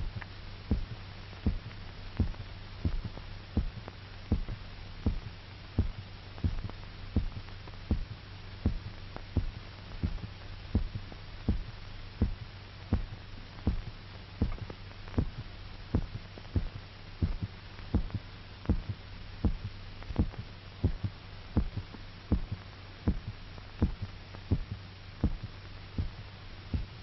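Amplified heartbeat of an anaesthetised dog on an old film soundtrack: regular thumps, about one and a half a second, over a steady low hum. The heart is still beating while its blood is drained from the carotid artery.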